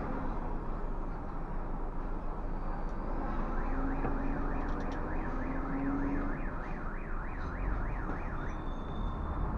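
An electronic siren warbling quickly up and down, about three sweeps a second, for about four seconds in the middle. Under it runs the steady low rumble of the coach's engine and road noise in the cab, and a short high beep sounds near the end.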